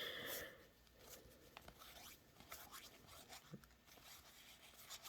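Near silence, with a faint rustle at the start and scattered light ticks of trading cards being handled and shuffled.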